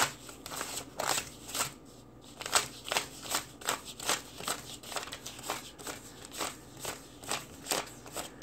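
Paper US dollar bills being counted off by hand one at a time and laid down in a spread. Each bill gives a crisp flick or rustle, in an uneven run of two or three a second.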